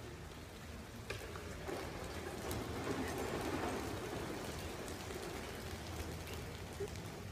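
Many feet pattering on a sports-hall floor as a large group runs into formation, heard as an even rain-like rustle with faint scattered ticks under a low hall murmur.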